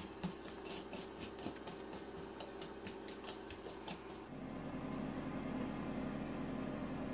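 Small wire whisk scraping and clicking against a plastic bowl as crumbly almond-flour and coconut-oil pastry dough is worked into crumbs, about four strokes a second. After about four seconds the strokes stop and a steady low hum is left.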